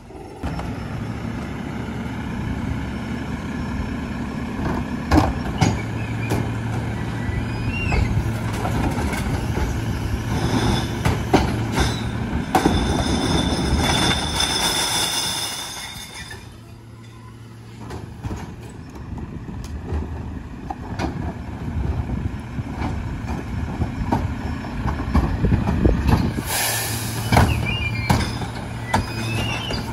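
McNeilus rear-loader garbage truck running steadily, with repeated knocks and bangs as plastic recycling carts are dumped into the rear hopper. A high hiss runs for a few seconds in the middle, and a short hiss of air comes near the end.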